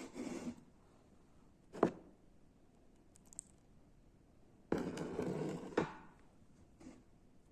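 Close-miked eating and food-handling sounds from a radish-and-rice meal: a sharp click about two seconds in, then a noisy, crackly burst lasting about a second past the middle, with small ticks around it.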